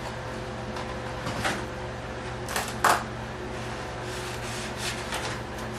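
Soft handling noises of a foam rudder being pressed onto hinge tape: light rubbing with a couple of brief scrapes about two and a half to three seconds in, over a steady low hum.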